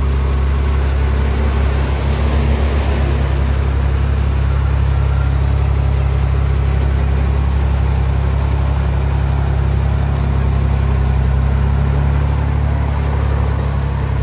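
A large vehicle engine running steadily at low revs, a deep even drone.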